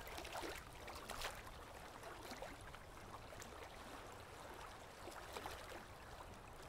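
Faint steady background hiss with a few soft, brief clicks.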